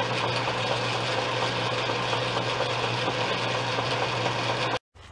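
Old Atlas 10-inch metal lathe running steadily with a homemade boring bar in a cast-iron motorcycle cylinder bore, giving a steady hum. The sound cuts off abruptly near the end.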